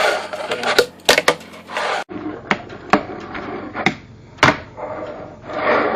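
Homewood wooden fingerboard being ridden, with a series of sharp clacks as the tail pops and the board lands, and rolling noise between them.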